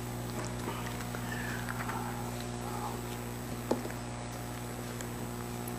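Quiet pause in a church: a steady electrical hum through the sound system, faint rustling and murmurs from the congregation, and one sharp click about three and a half seconds in.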